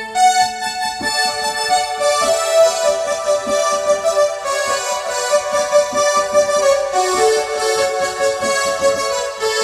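Music played on a Korg Kronos synthesizer workstation: a melody in an electric-piano-like keyboard tone over held chords, with a light beat underneath.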